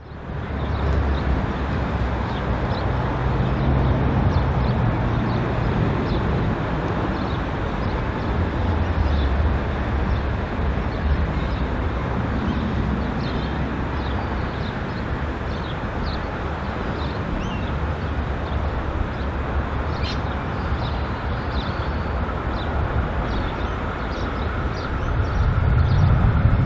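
Pacific National 81 class diesel-electric locomotives running light engine, a low steady engine rumble that grows louder near the end as they come closer. Birds chirp over it.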